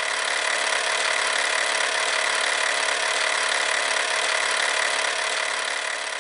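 A loud, steady rushing noise with a faint hum in it, like a machine whir or static, swelling slightly in the first second and tailing off near the end.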